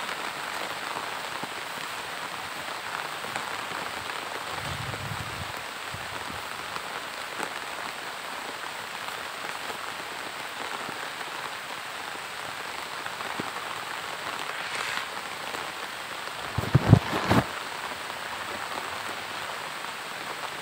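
Steady rain falling on grass and muddy ground, an even hiss. A short cluster of loud low thumps comes about three-quarters of the way through.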